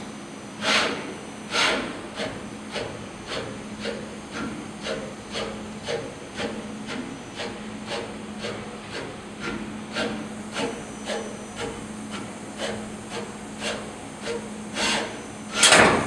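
SPI S500I solder paste inspection machine's camera gantry stepping across the board, each move a short rubbing stroke about twice a second, over a steady low machine hum. Louder strokes come twice near the start and again near the end.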